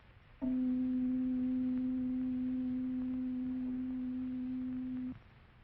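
A steady pure tone sounding middle C, about 262 Hz, with faint higher overtones. It starts abruptly about half a second in, holds for nearly five seconds while fading slightly, then cuts off sharply.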